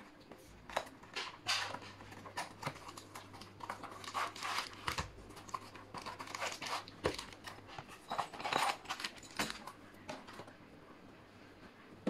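A cardboard box being opened by hand and gas struts in plastic bags being taken out of it: a run of irregular scraping, rustling and crinkling packaging noises that die down after about ten seconds.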